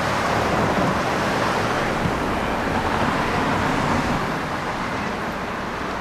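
Road traffic noise: a steady rush of tyres and engines that swells in the first second and slowly eases toward the end, as of a vehicle passing.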